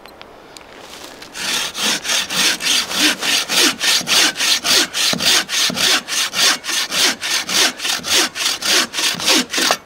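A 24-inch bow saw with a new Bahco blade cutting through a dry dead log with fast, even back-and-forth strokes, about three to four a second, starting about a second in. The sawing stops abruptly near the end as the cut is finished.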